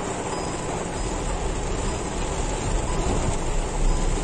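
Heavy rain falling on a car's roof and windscreen, heard from inside the cabin, over the low rumble of the car moving slowly along a flooded road; the rumble grows about a second in.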